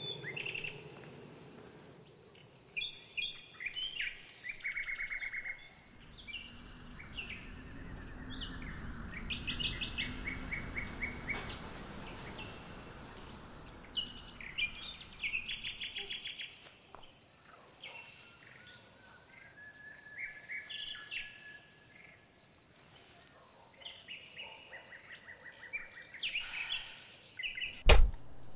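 Summer outdoor ambience: a steady high insect drone with birds chirping in short repeated trills. Near the end comes one sudden loud thump.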